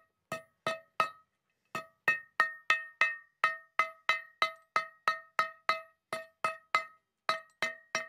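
Small hammer striking metal about three times a second, each blow ringing with a clear metallic tone, with two short pauses: old bent nails being straightened by hammering.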